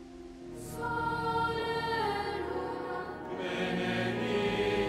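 A choir singing, coming in under a second in and growing louder, several voices holding and sliding between notes.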